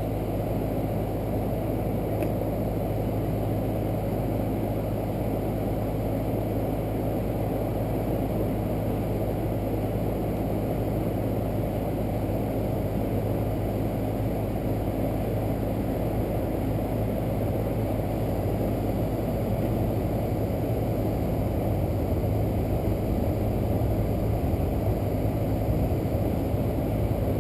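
Air-conditioning condensing unit running: a steady low compressor hum under the rush of the condenser fan, unchanging throughout.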